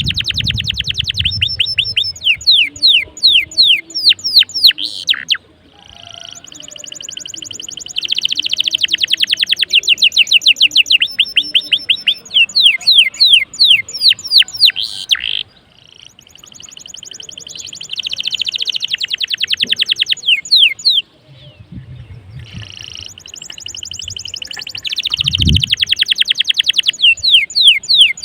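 Domestic canary singing vigorously: four long phrases of rapid rolling trills, each ending in a run of fast falling notes, with short breaks between phrases. A faint low thump comes near the end.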